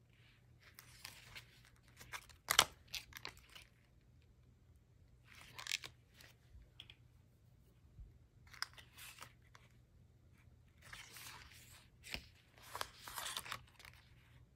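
Stiff, heavily painted and collaged tag pages of a handmade junk journal being turned and handled: five or so bursts of crisp paper rustling and crinkling, with a sharp crackle about two and a half seconds in that is the loudest.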